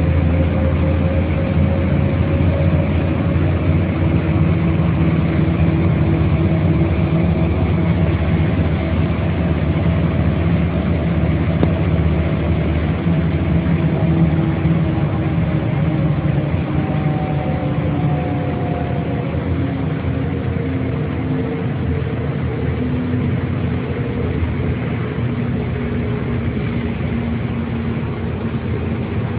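Mercedes-Benz O 405 city bus diesel engine running steadily with a deep rumble, its pitch slowly sinking and its loudness easing a little toward the end.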